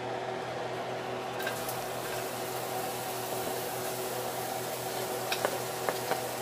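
Sliced onions sizzling in hot olive oil in a stainless pan, the sizzle starting about a second and a half in as they go in. A few light taps of a wooden spoon near the end, over a steady hum.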